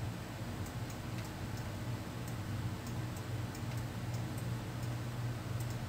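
Faint, irregular clicks of a computer mouse and keyboard over a steady low electrical hum.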